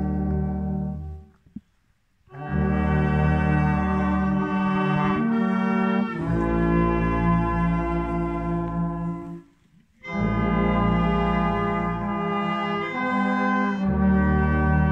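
Brass ensemble of trumpets and a tuba playing a slow piece in long held chords, with a deep bass line. The playing breaks off twice for a short pause between phrases, about a second in and again near ten seconds.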